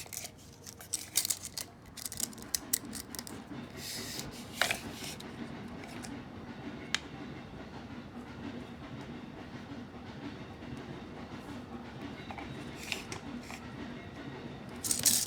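Handling noise while a short Ethernet patch cable is measured: scattered clicks and rustles in the first few seconds and a louder clatter near the end, over a steady low hum.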